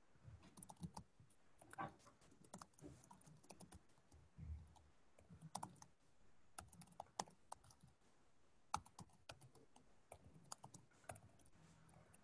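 Faint typing on a computer keyboard: irregular, scattered keystroke clicks.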